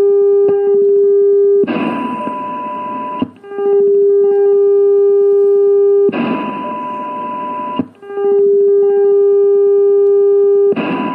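AM receiver audio from an rtl-sdr dongle: a loud, steady low test tone from the strong generator's modulation cuts out three times for about a second and a half. Each time, a fainter, higher tone from the weak signal, 80 dB down, comes through hiss at once, showing the very fast AGC recovering. A brief dropout follows as the strong carrier comes back on, then the low tone resumes.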